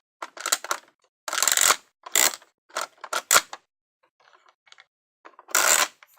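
Plastic toy train-set pieces clicking and rattling as they are handled, in a series of short, irregular clatters, the longest about a second and a half in and another near the end.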